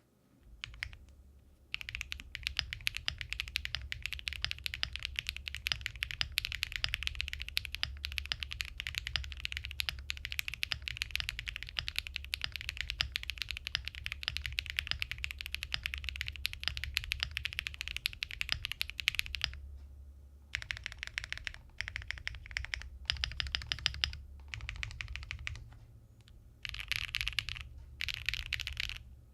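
Monsgeek M1 mechanical keyboard with full foam, relubed Feker Marble White switches and DMG keycaps being typed on. A fast, unbroken run of keystrokes lasts most of the first two-thirds, then typing comes in shorter bursts with brief pauses.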